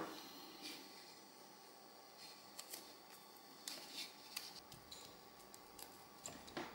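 Quiet handling noise: a few faint, scattered clicks and rustles of fingers working wires and small parts on an opened battery bank's circuit board, over faint room tone.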